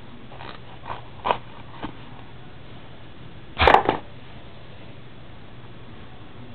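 Hands handling a cardboard trading-card box and its cards: a few light taps and clicks in the first two seconds, then one louder brief rustle a little over three and a half seconds in.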